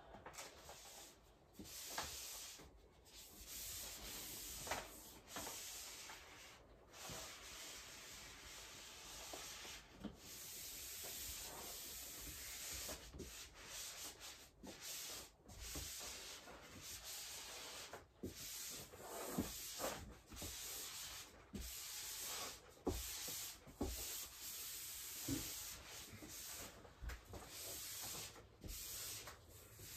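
Felt blackboard eraser rubbed back and forth over peel-and-stick wallpaper to smooth it flat against the wall: a scratchy rubbing in irregular strokes with short breaks between, and now and then a light knock.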